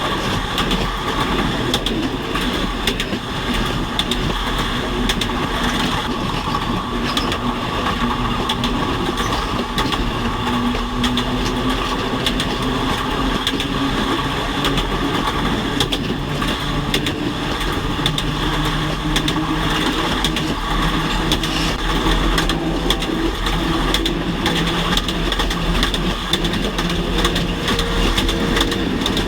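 Train running along the track: a steady rolling rumble and rail noise, with a low hum that slowly rises in pitch through the middle.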